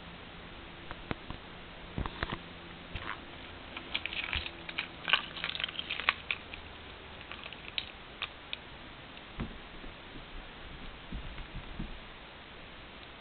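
A kitten's claws and paws scrabbling on cloth and floor: scattered scratches and clicks, thickest a few seconds in. Soft thumps follow near the end as it pounces onto the rug.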